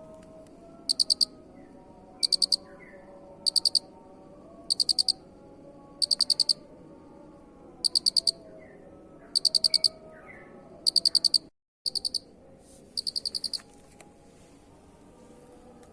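Cricket chirping: short runs of four to six rapid pulses, about one chirp every second and a bit, high-pitched. Fainter lower calls run underneath. The sound drops out for a moment near the three-quarter mark.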